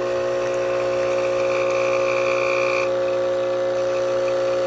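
ChefWave Káva capsule espresso machine's pump running steadily while brewing a shot, a constant mechanical hum.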